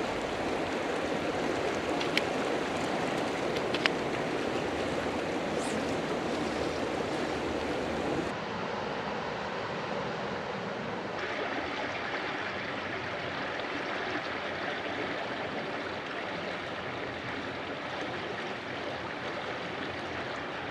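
Steady rush of a fast mountain river running over rock. Two sharp clicks come about two and four seconds in, and the rush drops a little past eight seconds in, then turns brighter about eleven seconds in.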